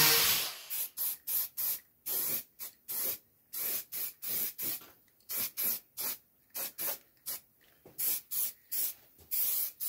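Aerosol spray can being sprayed in about two dozen short hissing bursts, roughly three a second, with brief gaps between them.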